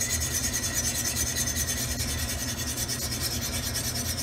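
Cutco wire whisk scraping against the bottom of a stainless steel pan in quick, even strokes, whisking a flour slurry into hot broth to thicken gravy.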